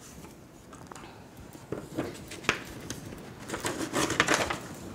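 Soft handling noises at a lectern during a pause in a talk: scattered light clicks and rustles, in two small clusters around two seconds and four seconds in, against quiet room tone.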